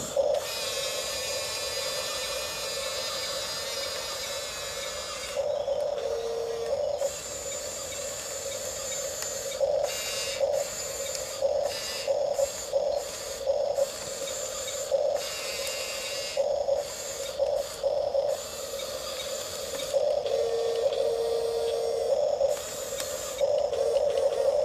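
Huina 1554 1/14-scale RC bulldozer's electric motors and gearboxes whirring in many short stop-start bursts as it is driven, with a longer, high-pitched whine in the first few seconds.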